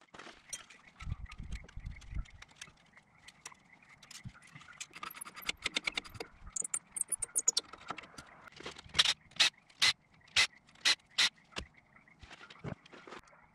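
Hand tools clicking and knocking on the front wheel hub of a 1995 Mitsubishi Montero while the locking hub is taken off: scattered small metallic clicks and taps, a few dull thuds early, then a run of about six sharp clicks roughly half a second apart past the middle.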